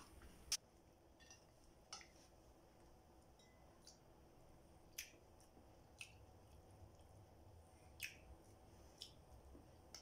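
Quiet mukbang eating sounds: a person chewing fried fish eaten by hand, with short wet lip smacks and mouth clicks every second or two, the sharpest about half a second in, over faint room tone.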